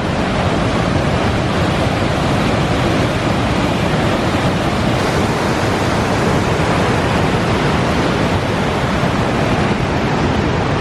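Steady, loud rushing of a tall waterfall in heavy flow, an even wash of falling water with no breaks.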